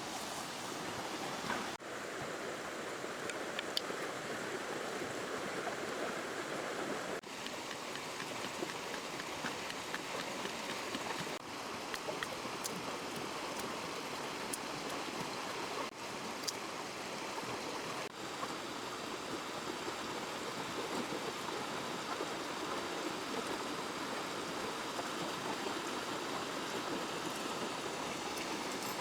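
Steady rush of a flowing river, with a few brief drops in level.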